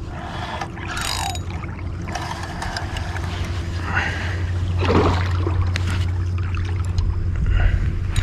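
Spinning reel and rod being worked against a hooked largemouth bass from a kayak: a steady low hum with scattered clicks and a few short falling sweeps, along with water sounds around the kayak.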